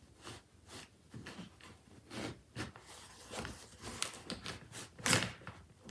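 Cloth rustling with small clicks and knocks as a roller-shade spring unit is worked out of its tube under a cloth. About five seconds in comes a sharper snap, the spring releasing its wound-up tension.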